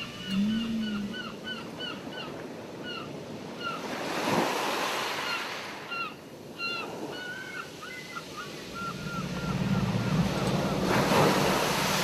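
Ocean surf washing steadily, with waves breaking about four seconds in and again near the end, mixed with gulls' short yelping calls in quick runs of about three a second. A brief low rising-and-falling moan sounds near the start, and a low held tone comes in near the end: whale song in the mix.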